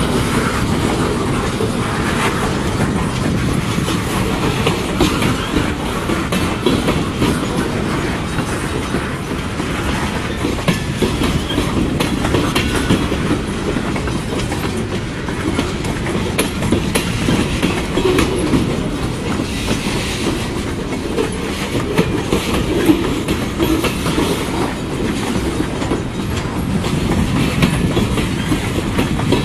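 Freight cars of a CN train, covered grain hoppers among them, rolling steadily past, with the clacking of steel wheels over the rails.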